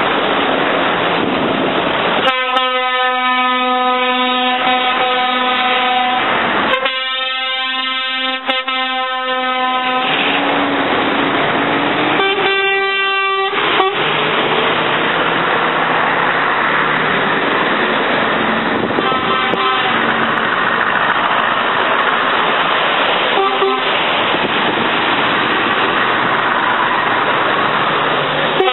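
Passing trucks sounding their horns over the steady noise of their engines: two long horn blasts back to back in the first third, a shorter, higher-pitched horn around the middle, and a couple of brief faint toots later.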